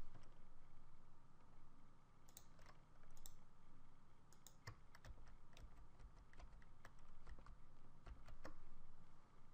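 Computer keyboard typing: faint key taps in short, irregular runs.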